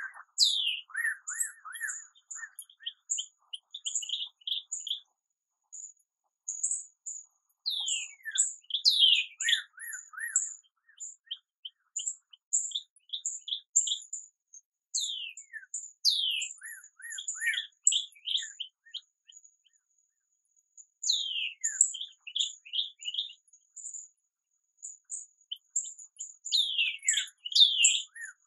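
Songbirds chirping and calling at dawn: high thin chirps, repeated downward-slurred calls and quick runs of short notes, coming in bursts with brief pauses.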